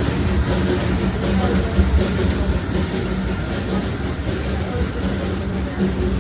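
Disneyland Railroad steam train running along the track, heard from aboard: a steady rumble of wheels on the rails with a low hum.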